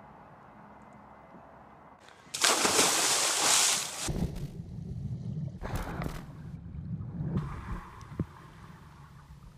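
A sudden loud rush of splashing water about two seconds in, lasting nearly two seconds. It gives way to a low rumble with further shorter surges of water.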